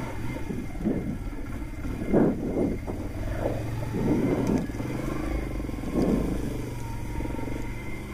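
ATV engine running as the quad rides along a wet gravel trail, the engine note swelling a few times.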